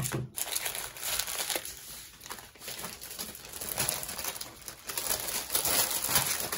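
Small plastic bags of diamond-painting drills crinkling and rustling as they are handled, in uneven bursts.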